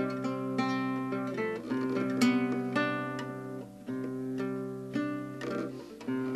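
Acoustic guitar playing a strummed and picked chord pattern, with notes ringing on.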